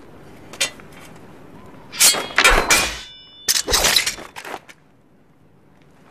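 Film fight sound effects of weapons striking and something breaking: a single sharp crack, then two quick flurries of clashing, splintering impacts about a second apart, the first trailing off in a brief metallic ring.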